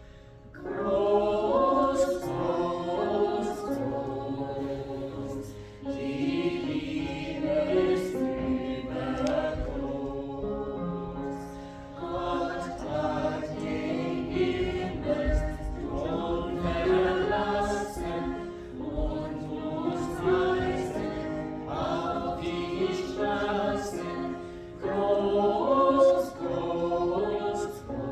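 Voices singing a church hymn together in chorus, in phrases of several seconds with short breaks between them.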